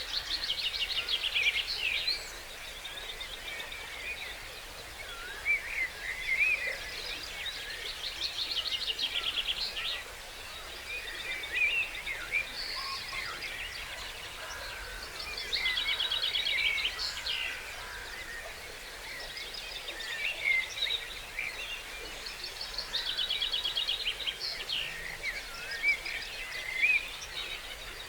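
Dawn chorus of several songbirds, one repeatedly singing a fast trilled phrase about two seconds long every few seconds, with other birds chirping and warbling in between.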